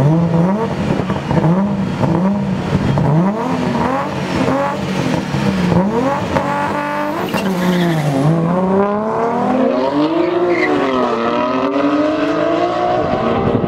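Engines of a Nissan Skyline R34 and a BMW M3 revving in short repeated bursts at the drag-strip start line. About six seconds in they launch and pull away hard, the pitch climbing steadily and dropping back at each upshift, about eight and eleven seconds in.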